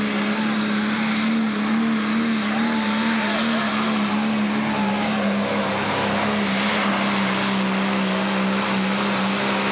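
Pro Stock pulling tractor's turbocharged diesel engine running flat out under load as it drags the sled: a loud, steady, high drone that holds one pitch with only a slight waver.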